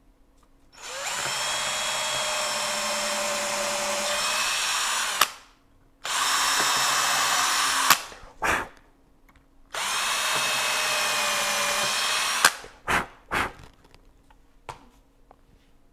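Cordless drill running at speed in three runs of a few seconds each, working a small bit into the wooden guitar body at the bridge screw holes. Each run stops with a sharp click, and a few short trigger blips follow.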